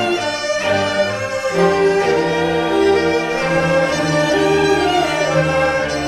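Guanzi, the Chinese double-reed pipe, playing a slow, wavering solo line over a Chinese orchestra's bowed strings, with cellos holding long low notes.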